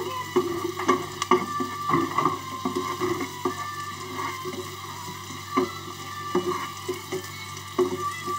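Spatula stirring and scraping through onion, garlic and ginger frying in oil in a wok, with a sizzle underneath and irregular clacks of the spatula against the pan.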